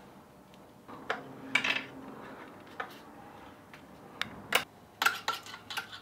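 Scattered, irregular clicks and light taps of hardware and a tool being handled as a front fender is fitted to an e-bike, with several quick clicks near the end.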